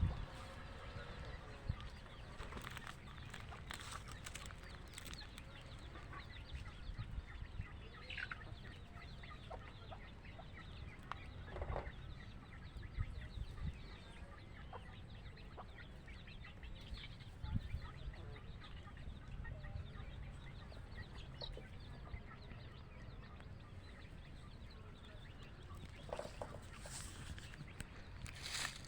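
Hens clucking now and then, with chicks peeping, in short scattered calls over a steady low background rumble.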